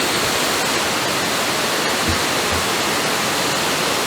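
Steady rushing of a waterfall and its river, a constant even roar of water, with two soft low thumps about two seconds in.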